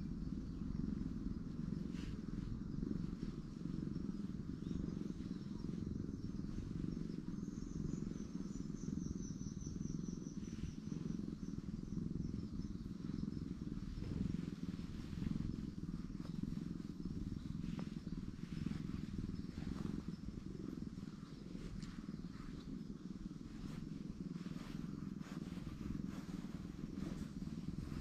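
Domestic grey cat purring steadily while being stroked on the head: a close, continuous low rumble.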